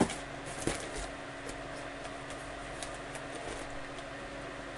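Quiet room tone: a steady hiss with a low hum, broken by two light taps in the first second and a few faint ticks.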